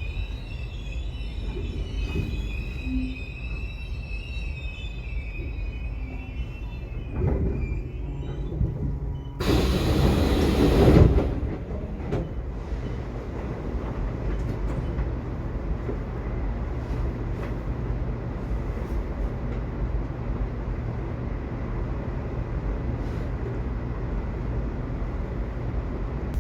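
Subway train running with a steady low rumble, its wheels squealing high for the first several seconds. About nine seconds in comes a loud rushing noise lasting a second and a half, the loudest moment, before the even rumble carries on.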